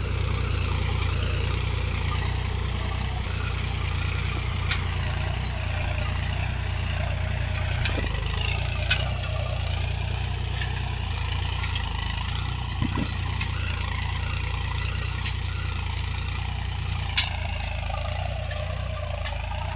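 Mahindra Yuvo Tech+ 415 DI tractor's diesel engine running steadily under load as it pulls a nine-tine cultivator through dry soil. A few brief knocks sound along the way, and the engine grows slightly fainter near the end.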